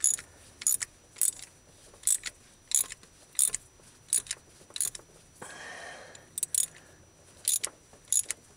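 Ratchet clicking as a spark plug thread chaser is worked back and forth in a Ford 300 inline-six's cylinder head, cleaning carbon-clogged spark plug threads. The sharp clicks come about every two-thirds of a second, with a short pause a little past halfway.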